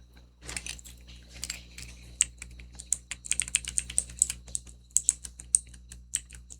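Rapid, irregular clicking of a clicky fidget toy, several sharp clicks a second.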